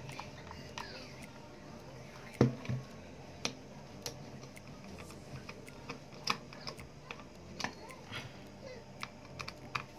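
Small screwdriver, screws and the plastic back of a BaoFeng BF888s walkie-talkie as its belt clip is screwed on: scattered light clicks and taps, the loudest about two and a half seconds in.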